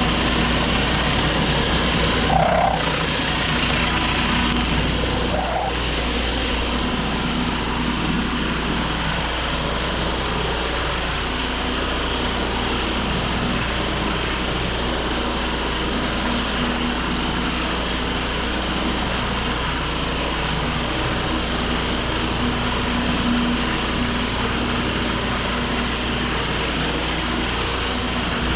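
Pressure washer's engine running steadily, with the hiss of the water spray. Two brief higher-pitched sounds come a few seconds in.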